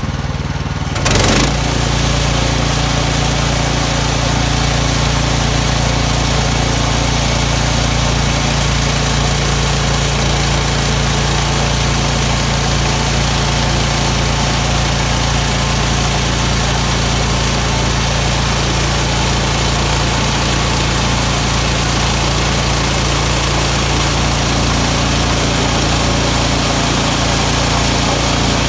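Sawmill engine running steadily under a constant load, with a brief change in its sound about a second in.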